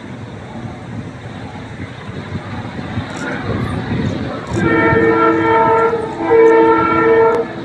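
Multi-note air horn of series 664 diesel-electric locomotive 664-112 sounding two loud, steady blasts, each a little over a second long with a short break between, starting about four and a half seconds in. Beneath it, the low rumble of the approaching train grows louder.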